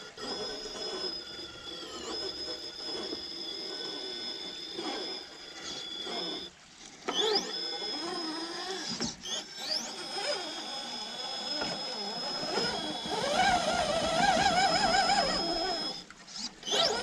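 Electric drive of an RC rock crawler (3BRC Yellowjacket 2000kv brushless motor on a Castle Copperhead ESC) whining as it crawls up boulders, the pitch rising and falling with the throttle over a steady high tone. The sound breaks off briefly a few times.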